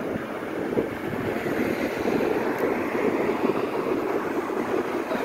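Steady rushing noise of an e-bike being ridden along a paved street: wind against the microphone mixed with tyre and road noise.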